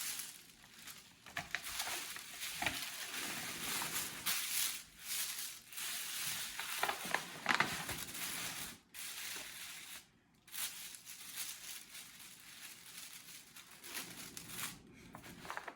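Tissue paper being handled and crumpled: continuous irregular rustling and crinkling, with a couple of short pauses.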